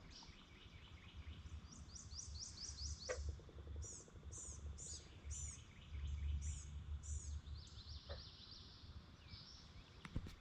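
Birds singing: a quick run of high chirps about two seconds in, then several high slurred notes, over a low rumble of wind on the microphone.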